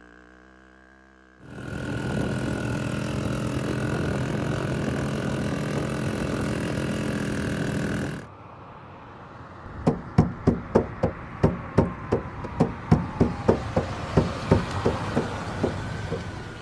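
Motorcycle engine running steadily under way, cutting off abruptly. Then a run of sharp knocks, about two to three a second.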